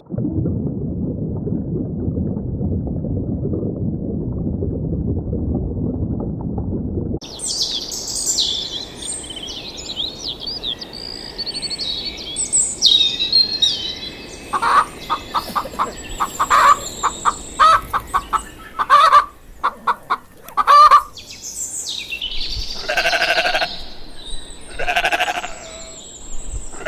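A series of farm animal sounds. A low rumbling noise runs for about seven seconds and cuts off abruptly. Small birds chirp next, then a run of quick pulsed calls, and near the end three bleats from sheep or goats.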